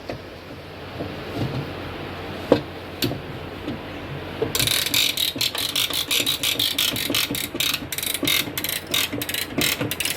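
Hand strapping tensioner ratcheting as it tightens a polyester composite strap through its buckle: a few scattered clicks at first, then from about halfway a fast run of ratchet clicks, about five a second.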